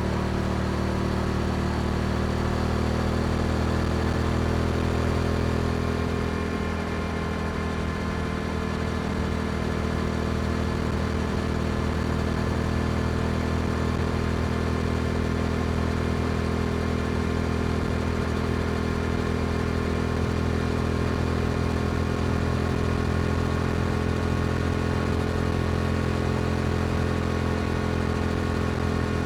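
Yamaha R7's 689 cc parallel-twin engine running through an Akrapovic exhaust at steady cruising speed; the engine note rises a little over the first few seconds, then holds steady.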